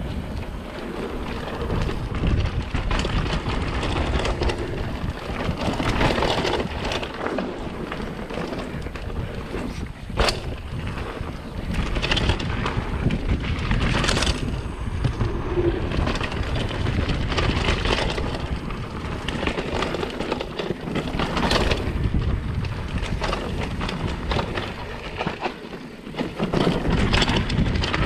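Mountain bike riding fast down a dirt trail: tyres rumbling over the ground, the bike rattling over bumps, and wind buffeting the microphone, with a sharp knock about ten seconds in.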